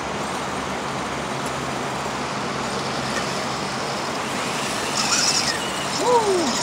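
Steady rushing outdoor background noise, with a brief high-pitched whine about five seconds in and a short falling, whistle-like tone near the end.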